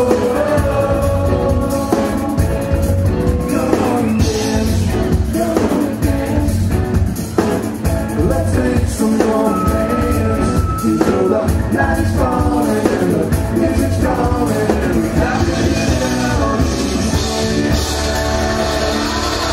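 Live rock band: several voices singing together over electric guitars and a drum kit.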